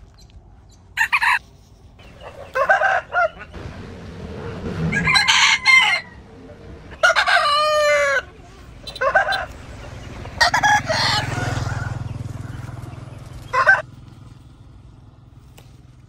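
Chickens calling in short clucks and squawks every second or two, with one longer rooster crow a little past the middle.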